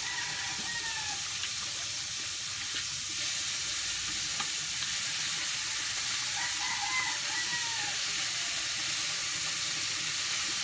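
Steady hiss under two drawn-out rooster crows, one near the start and one about six and a half seconds in, each rising and then falling in pitch. A few faint clicks.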